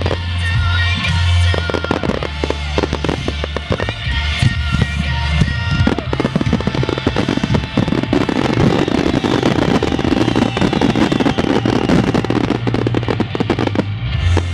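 Fireworks display: rapid bangs of aerial shells bursting, thickening into a dense crackling barrage in the second half, with music playing throughout.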